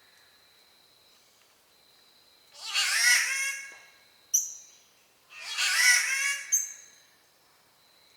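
Spotted catbird giving two cat-like wailing calls, each about a second and a half long, rich in overtones that waver up and down. Each call is followed by a brief sharp high note.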